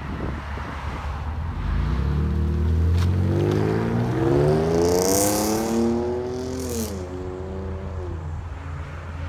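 2017 Chevy Camaro RS V6 with dual Dynomax Super Turbo mufflers and the resonator deleted, accelerating away: the exhaust note rises in pitch for a few seconds, drops sharply once at a gear change about seven seconds in, then pulls on more steadily.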